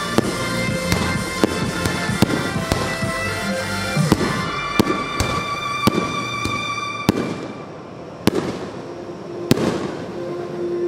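Fireworks bursting in rapid succession with music playing, the bangs thinning after about seven seconds to a few single sharp reports as the music drops away.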